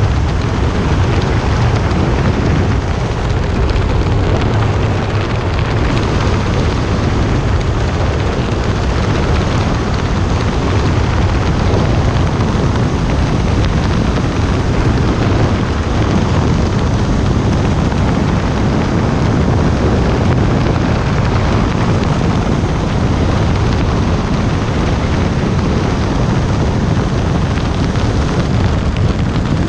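Steady wind rush and rumble buffeting the microphone of a helmet-mounted camera as a skydiver descends under an open parachute.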